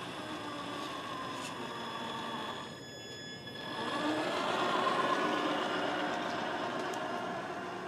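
Radio-controlled Ford Bronco scale truck's motor and gears whining as it drives past towing a trailer, growing louder about four seconds in as it passes close, then easing off.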